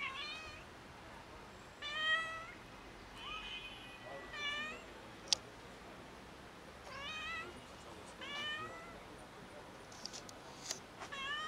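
Hungry stray cats meowing for food: about seven short meows a second or two apart, some rising then falling in pitch. A single sharp click about five seconds in.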